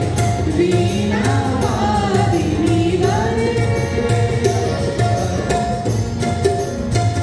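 Music with singing over a steady drum beat and a held instrumental tone.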